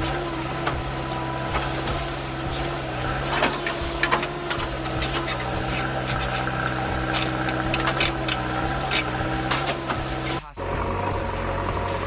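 JCB 3DX backhoe loader's diesel engine running steadily under load while the backhoe digs, with frequent clanks and scrapes of the bucket and linkage in earth and stones. The sound breaks off abruptly just after ten seconds in and picks up again with the engine steady.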